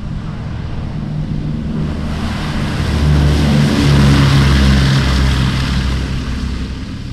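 Boeing B-17 Flying Fortress's four Wright R-1820 Cyclone nine-cylinder radial engines at takeoff power as the bomber rolls past on its takeoff run. The sound grows louder to a peak about four seconds in, then fades as the engine note drops in pitch.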